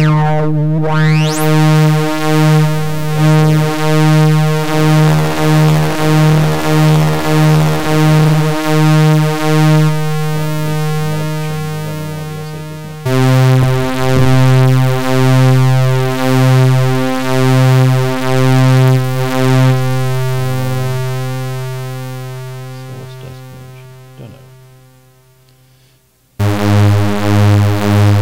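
Moog analog synthesizers (modded Werkstatt with a Little Phatty) holding a single buzzy bass note that pulses in a steady rhythm, its filter cutoff swept and controlled from the Werkstatt. About halfway it drops to a lower note and slowly fades, then a higher note starts near the end.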